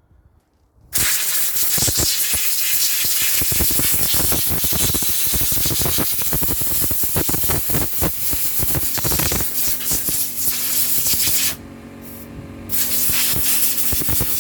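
Compressed air from an air compressor's blow nozzle hissing loudly as it blasts sawdust and grime out of a chainsaw. The blast starts about a second in, breaks off briefly near the end and resumes, with a steady hum running underneath in the latter part.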